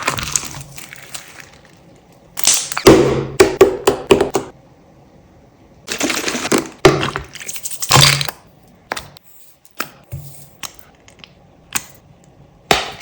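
Brittle, crunchy material being crushed: two bursts of dense crackling crunches, then a handful of single sharp cracks spaced over the last few seconds.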